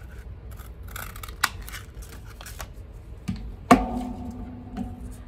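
Cardstock being handled and punched with a 1 1/4-inch circle paper punch: a few soft clicks and rustles, then one loud sharp clack about three and a half seconds in that rings briefly.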